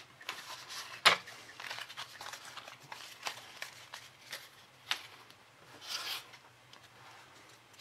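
Baseball cards being handled and flipped through by hand: soft slides and flicks of card stock, with one sharper snap about a second in.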